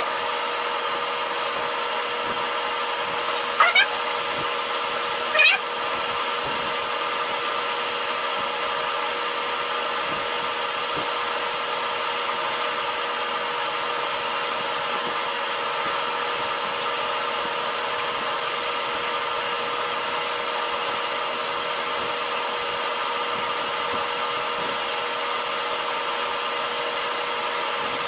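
A steady machine drone with several held tones, running unchanged throughout. Two short squeaky rising sounds come about four and five and a half seconds in.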